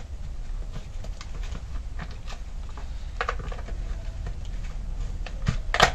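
Plastic handle housing of a petrol chainsaw being worked loose and lifted off by gloved hands: scattered light clicks and rubbing of plastic parts, with one louder clack near the end, over a steady low hum.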